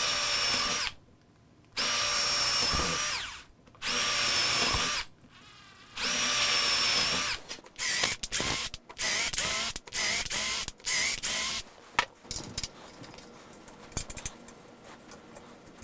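Cordless drill boring holes through a paper template into wood: four steady runs of a second or so each, then a string of quick, short trigger pulses with the motor speed dipping and rising. Light handling clicks and rustles in the last few seconds.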